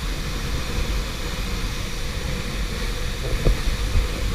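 Steady rushing noise of a waterfall, with an uneven low rumble underneath.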